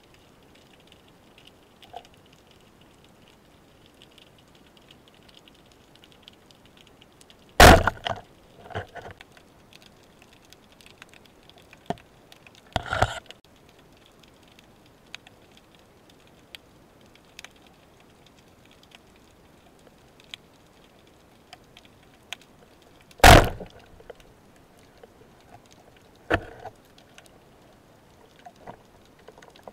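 Underwater sound picked up by a camera mounted on a speargun: a faint crackling hiss with scattered small ticks, broken by four sharp knocks, the loudest about eight seconds in and again about twenty-three seconds in.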